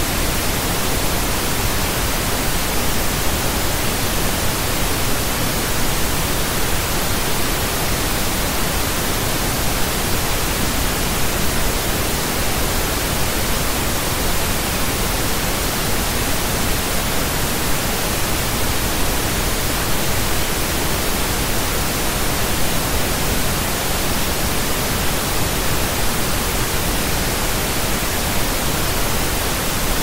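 Steady pink noise: an even, unchanging hiss with no events in it, used as a sleep-masking sound.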